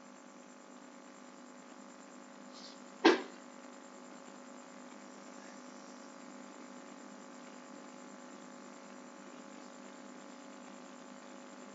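Steady electrical hum, with one sharp click about three seconds in.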